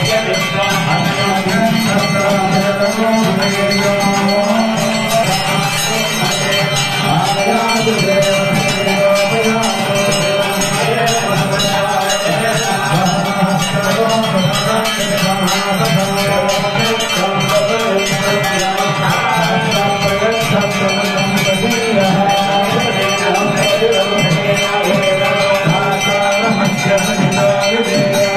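Hand bells ringing continuously through a Hindu harati (aarti) lamp offering, with devotional singing carried over a microphone.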